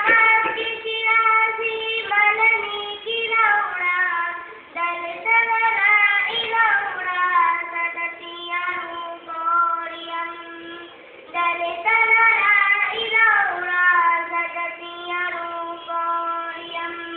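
A girl singing solo, with long held notes gliding between pitches.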